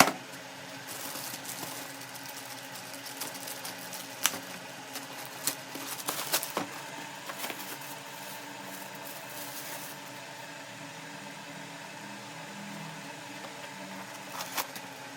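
Steady mechanical hum from a running fan or motor, with scattered sharp clicks and crinkles of packaging being handled. The loudest clicks come at the very start and about six seconds in.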